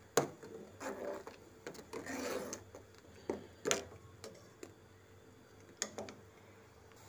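Metal spoon scraping and clinking against a metal pot while stirring milk as it curdles with lemon juice. There are several sharp clicks, about four, between short stretches of scraping.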